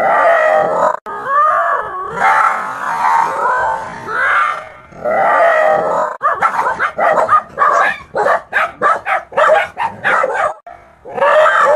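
Several dogs barking and growling at a stuffed toy tiger jerked about on a stick, as at a threat. Drawn-out growling barks at first, then a fast run of short sharp barks, about three or four a second, from about six seconds in until near the end.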